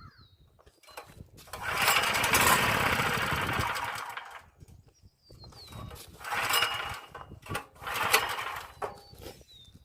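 Recoil pull-starts on an open-frame portable generator's small gasoline engine, choked for a cold start: three pulls, one long and two shorter, the engine turning over without catching.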